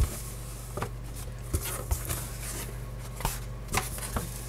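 Cardboard shipping box being opened by hand: the flaps are lifted and handled, giving scattered light taps, knocks and rustles of cardboard.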